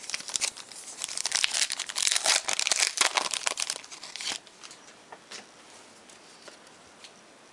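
Foil wrapper of a Panini Totally Certified football card pack crinkling as it is torn open by hand, a dense crackle that stops about four seconds in, followed by a few faint clicks of the cards being handled.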